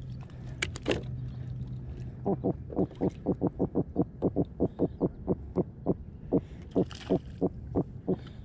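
Sea robin croaking while being held and unhooked: a rapid run of short grunts, about four a second, starting about two seconds in. It is the fish's distress call at being handled. A couple of light clicks come first.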